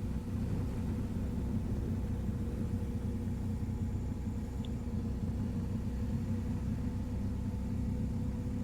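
BMW R 1250 GS motorcycle's boxer-twin engine running at a steady cruise, heard as a steady low hum with road rumble.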